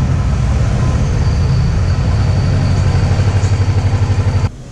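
Royal Enfield Thunderbird 500 single-cylinder motorcycle engine running with a regular low beat as the bike pulls up and idles, then switched off about four and a half seconds in, cutting out suddenly.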